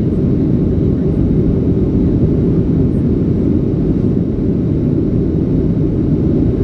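Steady cabin noise of a Boeing 737 in flight: a deep, even rumble of engines and airflow heard from a window seat, with no sudden sounds.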